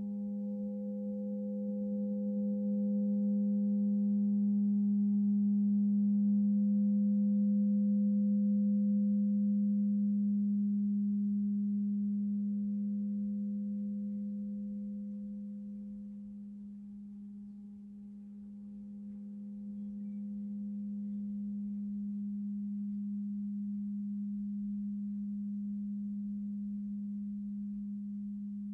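Crystal singing bowl sounding one long, low, pure tone with faint higher overtones, slowly swelling and fading and swelling again.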